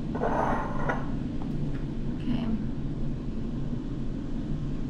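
A steady low hum, with a brief noise lasting under a second about a quarter second in.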